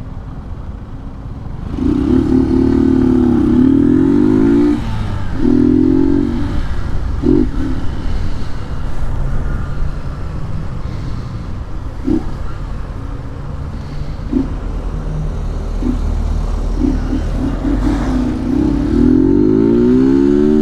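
Honda Titan 150's single-cylinder four-stroke engine revving hard under acceleration, its pitch climbing and falling through the gears in two loud pulls early on. It then runs quieter at a steadier speed with a few short blips, and revs hard again near the end.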